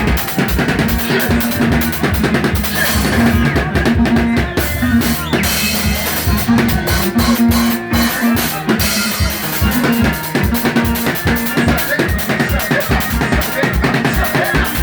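Band music driven by a drum kit playing a steady, busy beat of kick, snare and rimshot, with a low melodic line sounding in short repeated phrases over it.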